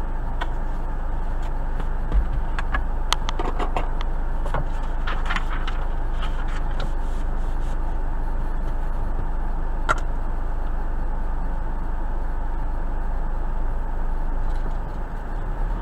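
Steady interior noise of a car sitting stopped with its engine idling, heard through a dashcam's microphone: an even low hum and rumble. A few scattered sharp clicks come in the first half, and one more about ten seconds in.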